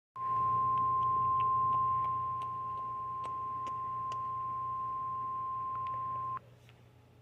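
NOAA Weather Radio warning alarm tone: a single steady tone of about 1050 Hz, held for about six seconds and then cut off sharply, over a low hum with scattered faint clicks of radio static. It is the alert signal that introduces a new severe thunderstorm warning.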